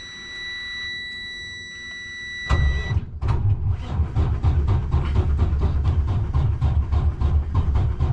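Detroit Diesel DD15 inline-six diesel in a 2011 Freightliner Coronado starting up about two and a half seconds in, then running with a fast, even beat. This is its first start after a turbo replacement, heard from inside the cab. Before it catches, a steady dash warning buzzer sounds, and it cuts out just after the engine starts.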